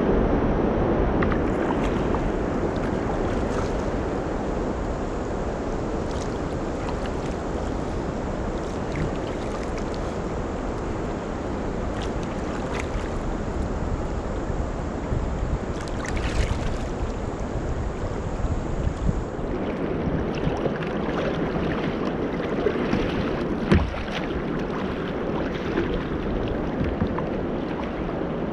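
Wind buffeting the microphone over choppy river water splashing against a kayak's hull, with a few light knocks and one sharper knock about three-quarters of the way through.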